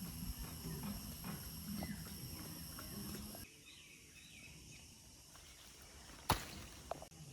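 Rural farmyard ambience with animal sounds and short bird chirps. It turns quieter a few seconds in, and a single sharp knock comes near the end.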